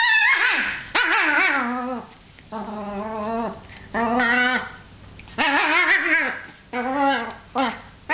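Papillon dog whining and yipping in excitement, a string of about seven separate calls whose pitch wavers up and down, some drawn out and a few short.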